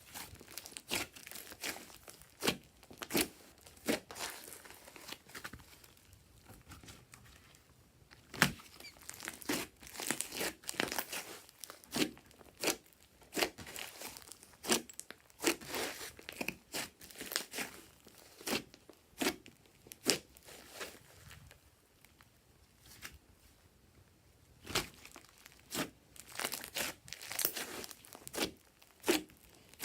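Glossy slime being squeezed and stretched by hand, making irregular sharp sticky pops and crackles, sometimes several a second, with a few brief pauses.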